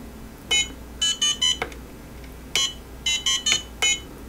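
An iRangeX IRX IR8M RC transmitter's buzzer gives short electronic beeps as its trim switches are clicked, about a dozen in all. Some beeps come singly and some in quick runs of three or four. Each beep marks one trim step.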